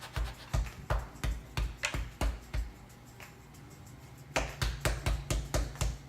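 Rhythmic thumping on a kitchen counter while cookie dough is worked. The thumps come about three a second, in two runs with a pause of about two seconds between them.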